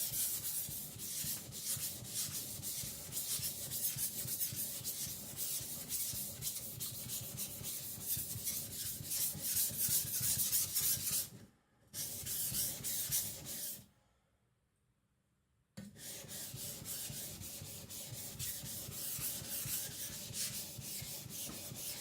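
Steel blade of a Victorinox Chinese cleaver being stroked back and forth across a wet Naniwa Aotoshi 2k whetstone, a steady scraping rub in quick regular strokes. This is the final finishing stage, left slightly coarse for an edge with bite. The strokes break off briefly about halfway through, then stop for about two seconds before starting again.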